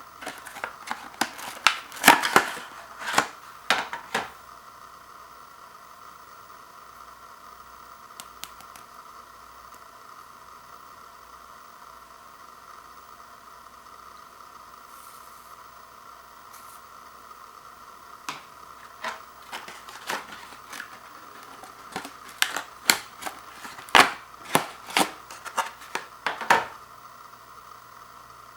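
Stiff plastic blister packaging of a toothbrush value pack being handled and opened: bursts of sharp clicks and crackles near the start, a quiet spell, then more clicking and crackling through the second half. A steady faint hum sits underneath.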